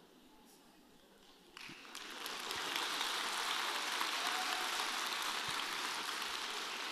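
Audience applause, starting about a second and a half in after a short near-quiet pause, swelling and then holding steady.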